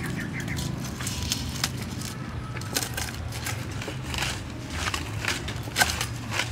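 Kitchen knife chopping a bundle of lemongrass stalks on a wooden chopping block: a run of crisp, irregular cuts and knocks, the sharpest knock near the end.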